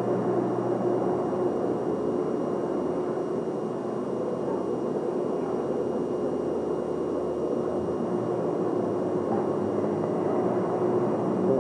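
Steady rushing room noise with a constant low hum inside a large aircraft hangar; no distinct events.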